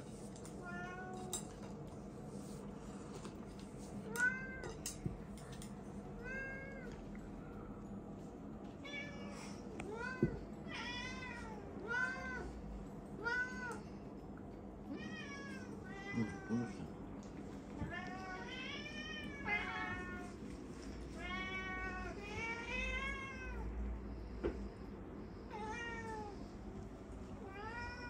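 Domestic cats meowing again and again for treats, each meow rising then falling in pitch. The meows are spaced out at first and come faster, sometimes overlapping, in the second half.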